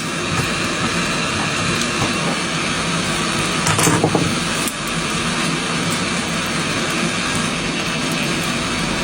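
Steady rushing, machine-like noise like a blower or fan running, with a short burst of crackling clicks about four seconds in.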